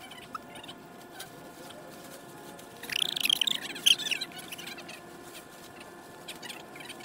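A burst of bird chirps about three seconds in, lasting about a second and a half, a series of quick rising-and-falling notes with one sharp loud note near the end.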